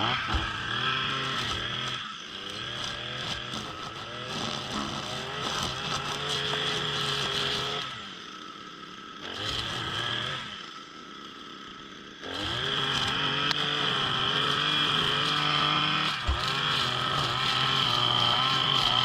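Small gas engine of a yard-maintenance power tool running hard with a high whine. It eases off briefly about eight seconds in, eases off again around ten seconds, and throttles back up to full speed about twelve seconds in.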